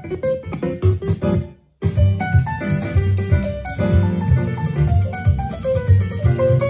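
Music playing through a Tivoli Audio tabletop system with its subwoofer, with heavy bass. The music cuts off about one and a half seconds in, and after a brief silence a new piano-led piece with bass and drums starts.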